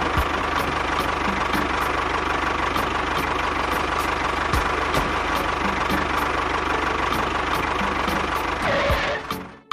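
Small engine of a DIY mini bulldozer running steadily, with a light regular ticking of about four a second; it cuts off about nine seconds in.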